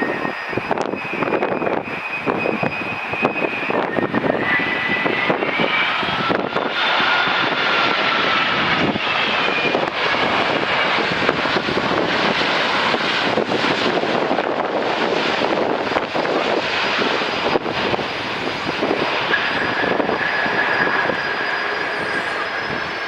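Boeing 787-10 airliner's Rolls-Royce Trent 1000 turbofan engines running loudly and steadily, with a few whining tones that drift slowly in pitch. Gusts of wind buffet the microphone.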